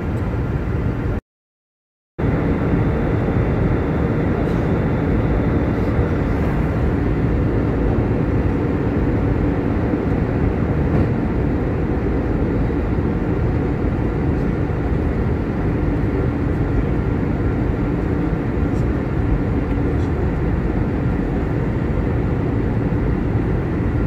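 Steady airliner cabin noise at cruise: the jet engines and rushing air make an even, unchanging drone heard from a window seat. About a second in, it cuts to silence for about a second before resuming.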